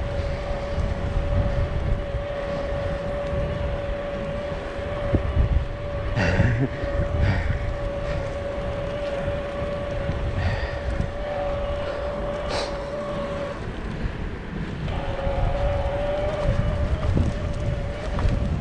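Electric bike's motor whining at one steady pitch under low wind rumble on the microphone. The whine drops out for a second or so about two-thirds of the way through and comes back slightly higher. A couple of short clicks sound along the way.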